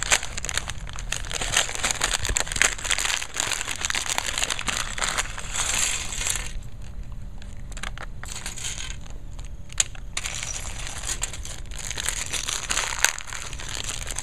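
Clear plastic bags of Mega Bloks pieces crinkling as they are handled and emptied, with small plastic bricks clicking and rattling onto the table. It goes quieter for a few seconds midway, with only a few sharp clicks, then the crinkling resumes.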